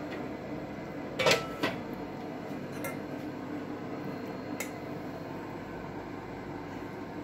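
Kitchenware clinking: a metal bowl knocking against a plate twice about a second in, then a few lighter clinks, over a steady background hum.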